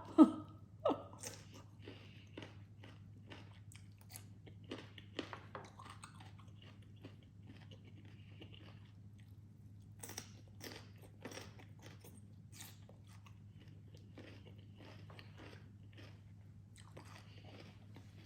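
A person chewing a mouthful of spicy salmon salad close to the microphone, with irregular short crunches and clicks of the food between the teeth.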